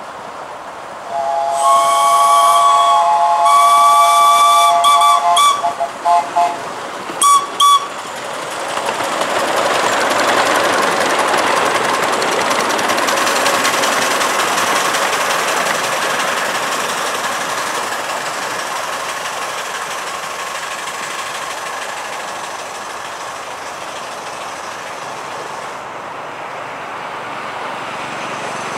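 A 7¼-inch gauge miniature steam locomotive sounds its chime whistle, several notes at once, in a long blast of about four seconds and then a few short toots. Then the train passes with a rushing rattle of wheels and exhaust that swells and slowly fades.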